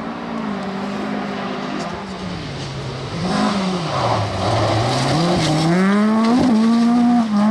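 Rally car engine running at speed. Its pitch dips about four seconds in under a rush of tyre noise, then climbs as the car accelerates hard, with a sharp crack about six seconds in.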